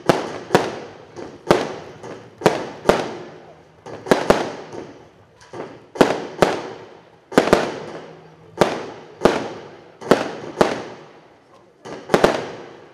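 Aerial fireworks bursting overhead in quick, irregular succession: sharp bangs about every half second to second, often in pairs, each followed by a fading tail.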